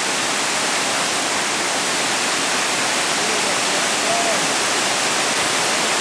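Waterfall rushing steadily: a loud, even noise of falling water with no break.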